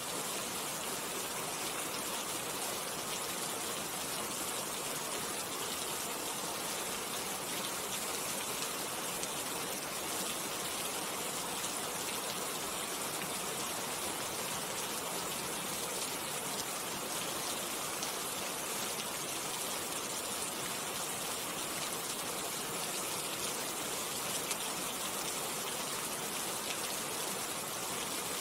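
Steady rain falling: an even hiss that holds unchanged throughout.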